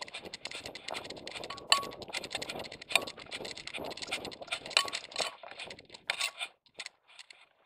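Dog-mounted action camera rattling and knocking in its vest harness as the dog runs through dry grass, with grass brushing against the housing and a few sharper clinks. The noise dies away about six seconds in.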